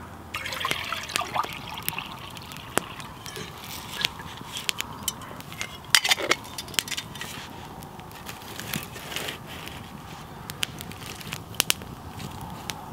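Open wood campfire crackling, with frequent sharp pops and snaps; a brief trickle of water in a steel camping mug near the start.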